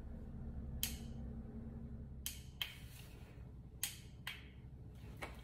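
Six or so short plastic clicks from a portable rechargeable blender being pressed and handled, with no motor starting: the blender fails to run.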